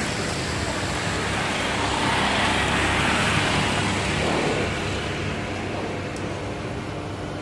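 Steady vehicle rumble that swells about two seconds in and eases off after about four and a half seconds, as of a vehicle passing.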